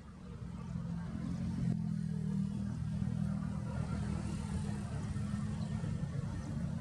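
A large engine running with a low, steady drone that grows louder about half a second in and then holds.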